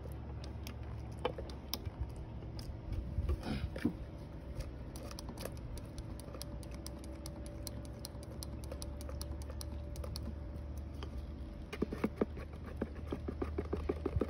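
A mixing stick clicking and scraping against a plastic cup as West System epoxy is stirred, in scattered light ticks that quicken into rapid, steady clicking near the end.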